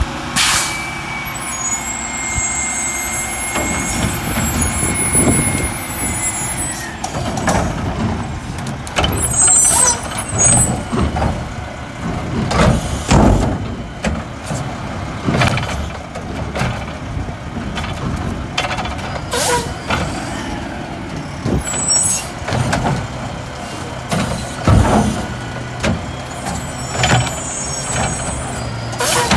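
Diesel engine of a Mack LR front-loader garbage truck running under load while its hydraulics work the McNeilus Curotto-Can arms, with a high steady whine for the first several seconds. After that, residential carts are picked up and tipped into the can, giving repeated bangs and clatter a few seconds apart.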